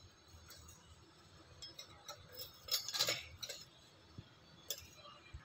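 Faint clinks and light taps of a measuring spoon against spice containers as spices are measured out, a small cluster about three seconds in and one more near the end.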